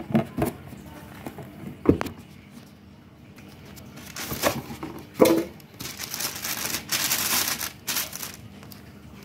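Clear plastic wrapping around a subwoofer is handled and pulled open, crinkling loudly in stretches over the second half. There are a few sharp knocks from handling the box near the start, about two seconds in and about five seconds in.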